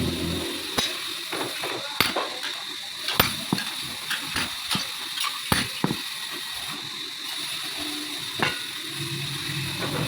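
Irregular sharp knocks and clicks of hand work on metal, some close together and some a second or more apart, over a faint steady high whine.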